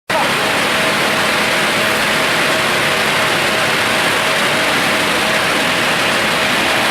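СПБ-8-2 pulpwood-processing saw machine running steadily: a dense, even noise with a faint steady whine.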